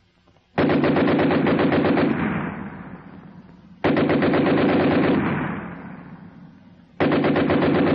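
German machine gun firing three long bursts at a very high rate of fire, the shots running together. Each burst trails off in echo, and the third starts near the end.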